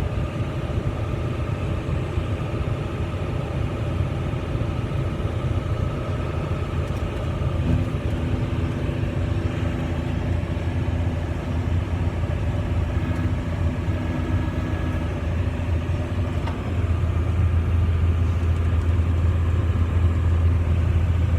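John Deere 9220 tractor's engine running steadily under load, heard from the cab, while it drives the Brent grain cart's unloading auger to empty the cart. An extra steady tone joins about eight seconds in, and the deep hum grows stronger near the end.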